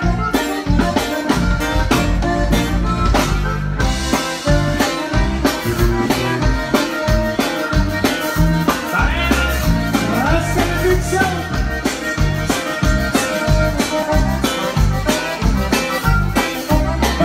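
Live Tejano conjunto band playing a dance number: accordion, guitar and bass over a drum kit's steady beat, with a lead vocal.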